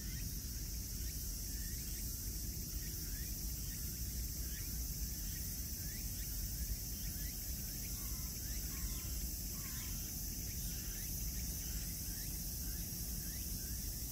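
Outdoor insect chorus: a steady high drone of insects with a quick run of short repeated chirps, about two a second, over a low steady rumble.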